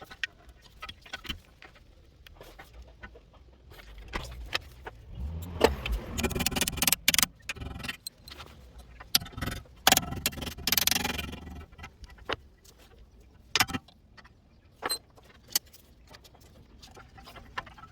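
Metal tools and parts clinking and clattering during the start of a car brake job: scattered sharp clicks and knocks, with two longer, louder rattling stretches in the middle.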